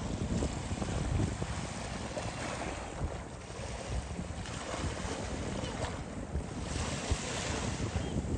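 Wind buffeting the microphone in gusts, with lake waves washing in swells every couple of seconds.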